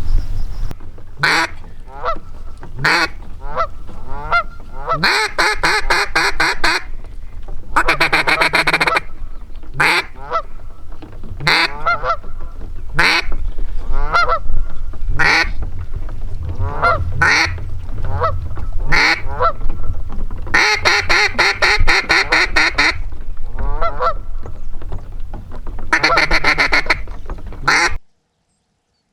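Waterfowl calling: a long series of short honks and quacks, broken by several fast runs of notes. The sound cuts off abruptly near the end.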